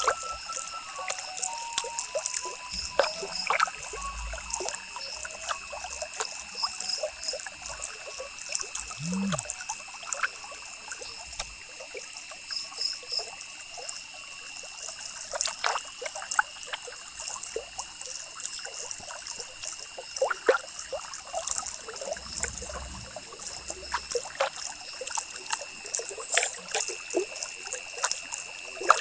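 Ballpoint pen scratching on paper in quick, short, irregular hatching strokes, with a faint steady high whine behind it.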